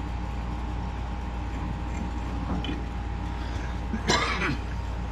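Bench drill press motor running unloaded with a steady hum and a faint whine. A short sound with gliding pitch cuts in briefly about four seconds in.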